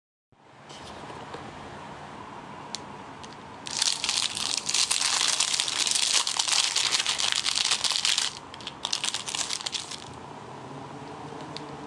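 Clear plastic wrapping crinkling in the hands as a plastic soft-serve mold is unwrapped: dense crinkling from about four seconds in to about eight, then a shorter burst.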